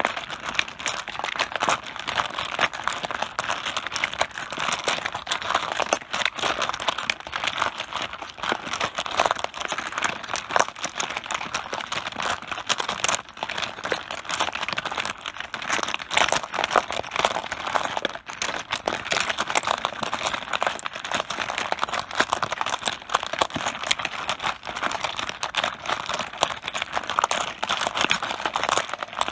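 Mahjong tiles clattering against one another on a tabletop: a dense, unbroken stream of small clacks.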